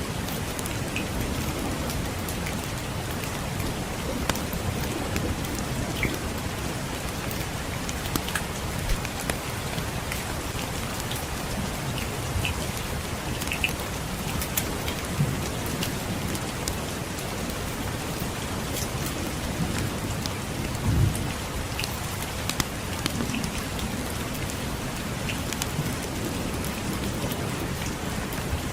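Steady rain with scattered sharp crackles and pops of a wood fire, and low rumbles of distant thunder, the strongest a short low rumble about 21 seconds in.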